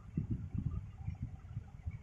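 Soft, low thuds and rumbles coming irregularly several times a second: handling noise from work at the repair bench.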